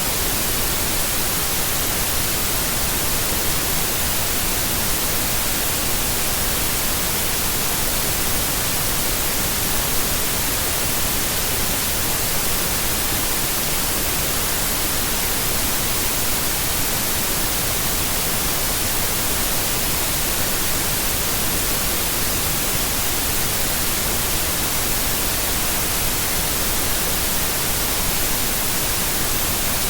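Steady white noise: an even, unbroken hiss.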